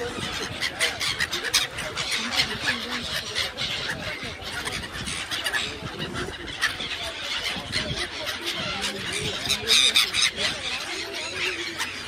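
A large flock of gulls calling over open water, many shrill calls overlapping without a break, as the birds crowd in to be fed.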